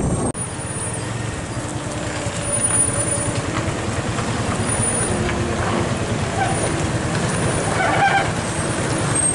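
Heavy diesel truck hauling a loaded lowbed trailer, its engine running at low speed over a rough dirt road, heard close behind it as a steady low rumble. A brief higher-pitched squeal comes about eight seconds in.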